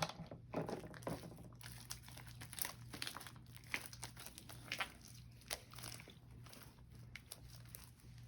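Sticky clear slime being stretched and handled, making faint, irregular short clicks and crackles.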